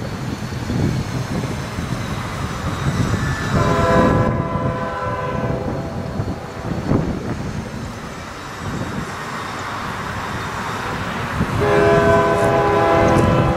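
Diesel freight locomotive's air horn sounding two blasts, a chord of several tones: one about four seconds in lasting a couple of seconds, and a second starting near the end. A low rumble runs underneath.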